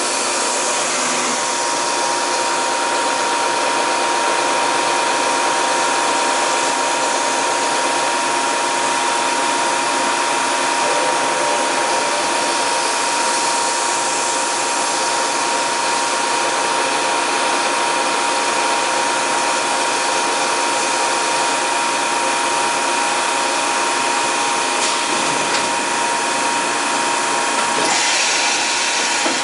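Matsuura MAM-600HF-PC-2 CNC horizontal machining center running with its spindle head traversing: a steady mechanical hum and hiss with a constant whine. A brief louder rush comes near the end.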